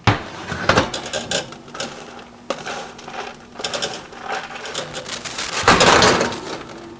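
A spatula scraping and turning chopped pecans on a metal baking sheet in a pulled-out oven rack, with clunks from the oven door and rack. The scraping and rattling grows louder about six seconds in.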